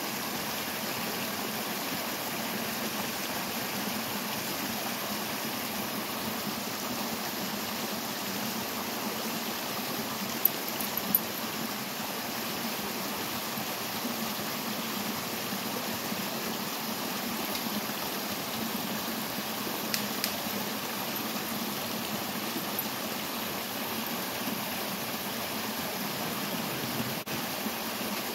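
Shallow stream rushing out of a culvert pipe and splashing steadily over a low rocky drop. A few short sharp knocks stand out about ten seconds in and again around twenty seconds in.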